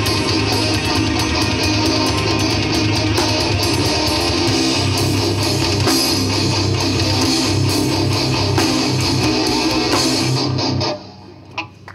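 A rock band playing live with loud electric guitars, cutting off sharply about a second before the end as the song finishes.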